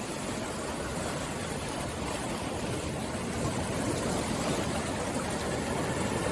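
Steady rushing noise of sea water, a little louder in the second half.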